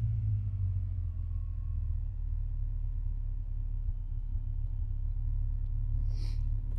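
BMW E39 535i's 3.5-litre V8 idling steadily with a low rumble through an exhaust that has had a silencer cut out. A brief hiss comes near the end.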